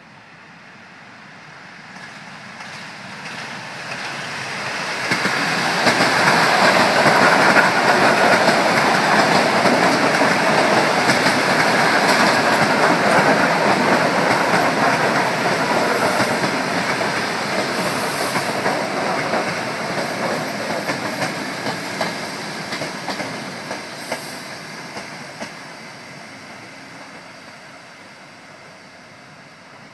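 Electric commuter train (electric multiple unit) passing close by, its wheels running over the rails. The noise builds over the first few seconds, stays loud through the middle as the carriages go past, then fades away.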